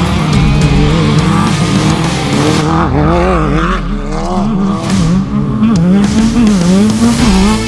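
Off-road race vehicle's engine revving up and down over and over, its pitch rising and falling about once a second.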